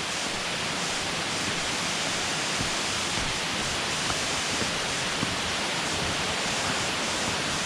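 Steady rush of falling water from a waterfall: an even, unbroken hiss.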